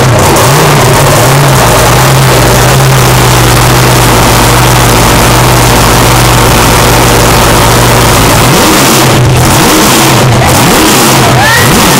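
Supercharged 454 Chevrolet big-block V8 in a ski-race boat running loud through open exhaust pipes. The revs rise and fall at first, hold steady for several seconds, then are blipped up and down again in the last few seconds.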